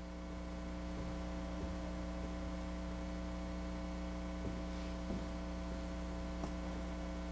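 Steady electrical mains hum with a faint hiss. A few faint soft knocks sound now and then.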